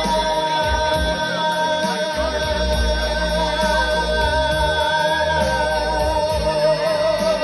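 Amplified music through a PA speaker: a man singing into a microphone over a backing track, with long held, wavering notes above a pulsing bass line.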